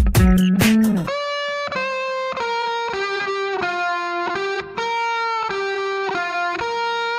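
Instrumental background music: a beat with bass in the first second drops out, leaving a lead guitar melody of held notes that step up and down in pitch.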